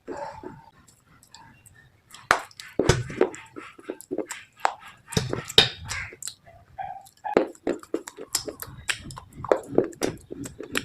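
Close-miked biting and chewing of crunchy slate items: a run of sharp, irregular crunches and snaps, sparser at first and coming thick and fast from about two seconds in.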